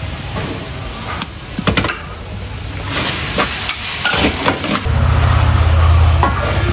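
A metal ladle knocking and scraping against a steel wok, then liquid hitting the hot wok about three seconds in and hissing into steam. Near the end a steady low rumble sets in and becomes the loudest sound.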